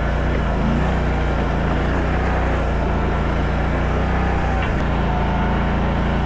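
Mini stand-up skid steer's small engine running steadily at constant speed.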